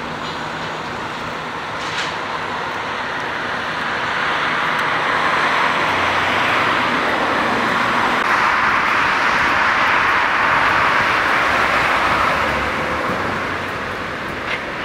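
A passing vehicle: a rushing noise that swells over several seconds, peaks in the middle and fades again toward the end.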